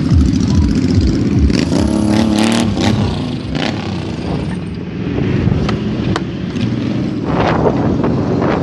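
Motorcycle engines running, with a rise in engine pitch about two seconds in.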